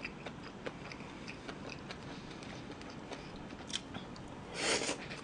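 Close-up eating sounds of a person chewing grilled marinated meat: small scattered clicking mouth noises, then a loud, short noisy burst about four and a half seconds in as a big chopstick-load of meat goes into the mouth.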